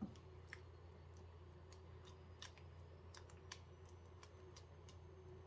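Faint, irregular light clicks and taps of a silicone spatula stirring thick baked beans in a stainless steel saucepan, over a low steady hum.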